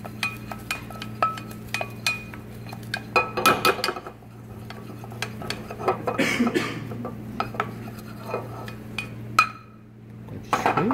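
A utensil clinking and scraping against a pot of sautéed sliced mushrooms, in quick irregular clicks, then liquid poured into the pot about six seconds in. A steady low hum runs underneath.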